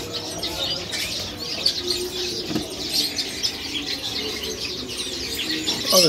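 Many small caged finches chirping together, a busy overlapping chatter of short, high chirps.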